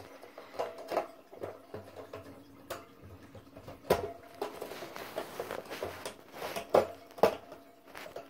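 Light clicks, taps and patter on hard plastic as a baby wood mouse moves inside a clear plastic hamster ball, with a few sharper knocks about four seconds in and twice near the end.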